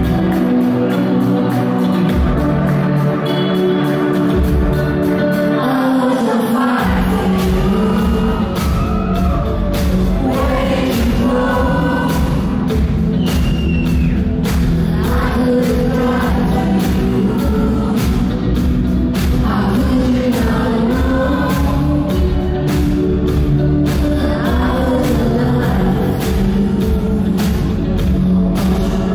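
Live band playing a song over a loud PA: sustained keyboard chords, with bass and drums coming in about seven seconds in, and a female lead vocal singing over them.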